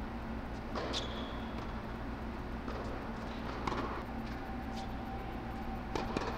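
Tennis ball struck by racquets and bouncing on an indoor hard court during a rally: a few sharp pops spread irregularly, with a brief high squeak about a second in. Under it runs a steady low hum from the air-supported dome's blowers.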